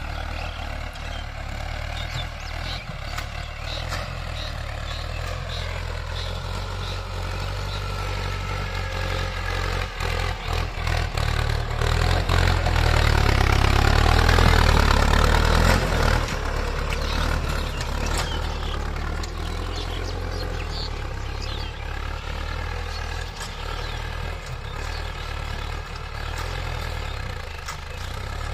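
Mahindra tractor's diesel engine running steadily under load as it pulls a tine cultivator through dry soil. It grows louder for a few seconds midway, then settles back.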